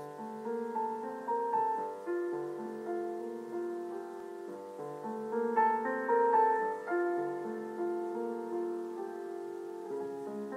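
Background piano music: a gentle melody of held notes over chords.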